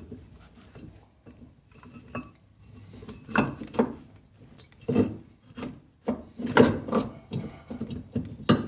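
A brake caliper being worked by hand onto the rotor: a series of irregular metal knocks and scraping, loudest in the middle and near the end, as it is pushed into place over the newly compressed piston.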